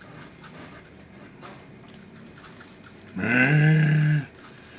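A drawn-out, wordless voice sound held on one low, steady note for about a second, near the end.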